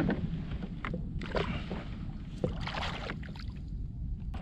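Wind rumbling on the microphone, with water lapping against a kayak hull and a few short knocks and rustles from handling on board.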